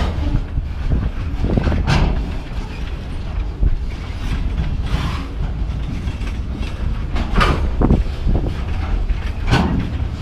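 Loaded freight cars rolling past with a steady rumble, their wheels giving sharp clacks at irregular intervals as they pass over one spot in the rail. The uploader takes the clacking for a sign of a developing rail defect.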